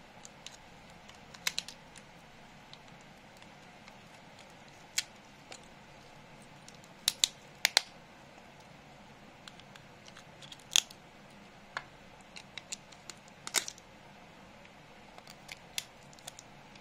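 Combination pliers breaking components off a laptop charger's circuit board: irregular sharp cracks and clicks, some in quick pairs, as parts and their glue snap loose.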